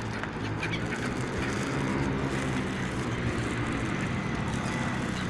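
Road traffic: a motor vehicle's engine hum passing along the street, its pitch rising and then falling away as it goes by, over steady street noise.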